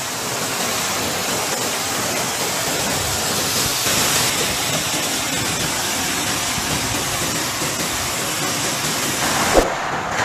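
Floodwater rushing through a street in a steady, loud torrent of noise, with one short thump about nine and a half seconds in.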